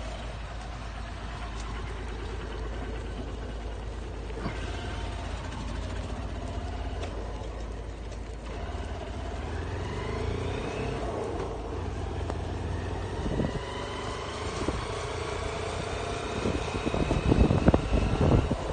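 A vehicle engine running as it drives along, with a whine that rises a few times as it picks up speed. In the last couple of seconds, wind buffets the microphone in heavy gusts.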